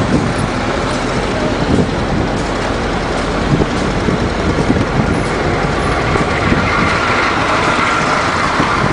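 Canvas-covered six-wheel military trucks driving by at close range, engines running steadily. A higher whine joins about six seconds in.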